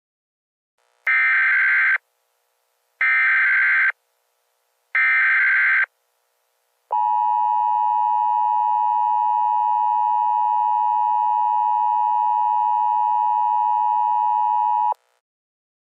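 Emergency Alert System tones: three one-second bursts of the screechy SAME header data signal, about a second apart, then the steady two-tone attention signal held for about eight seconds. Together they mark the start of a new emergency alert.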